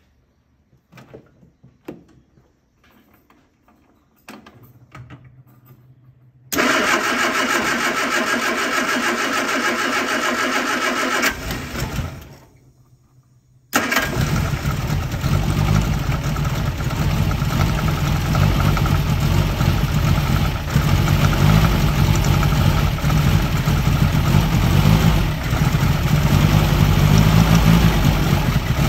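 1971 MG Midget's four-cylinder engine, rocker cover off, being started: the starter cranks it for about five seconds without it catching, stops, and on a second try a couple of seconds later the engine fires and keeps running, running terribly.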